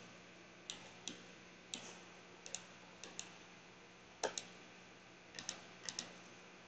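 Computer mouse buttons clicking: about a dozen short sharp clicks, several in quick pairs, over a faint steady hum.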